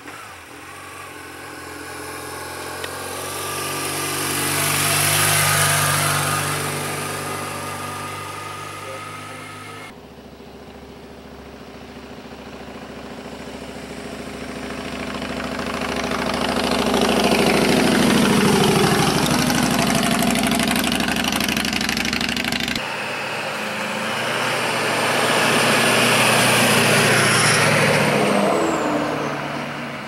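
Vehicles passing by one after another, each engine note building up, peaking and fading away. First a 2009 BMW GS1150 motorcycle goes by, reaching 77.1 dB on the meter. Then a 2007 Harley-Davidson Deluxe V-twin goes by, louder at 87.2 dB, its note dropping in pitch as it passes, and a third vehicle follows.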